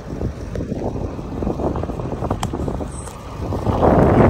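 Heavy-duty pickup truck driving slowly across a harvested field towing a gooseneck trailer, its engine rumbling and its tyres crackling over the stubble. It grows louder near the end as it comes alongside.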